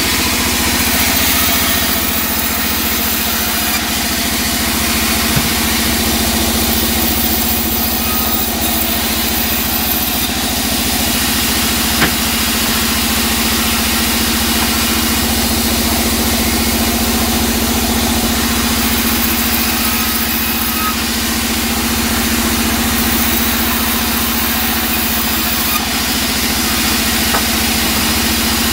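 Large vertical band saw running steadily with a constant hum, its blade cutting teak planks; a high hiss from the cut comes and goes as boards are fed through.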